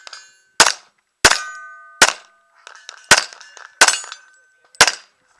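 Six handgun shots fired at an uneven pace, about one a second. After several of them comes a steady metallic ringing, typical of steel targets being hit.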